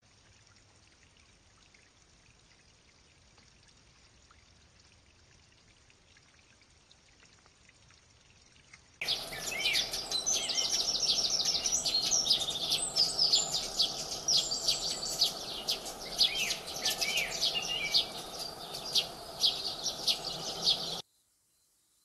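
Sparrows chirping busily, many quick overlapping chirps and short trills, starting suddenly about nine seconds in and cutting off just before the end. Before that only a faint steady hiss.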